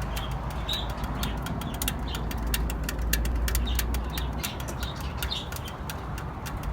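Hot car exhaust ticking and clicking irregularly as it cools and contracts after the engine is switched off, from the joints where exhaust sections meet. A steady low rumble runs underneath, and birds chirp in the background.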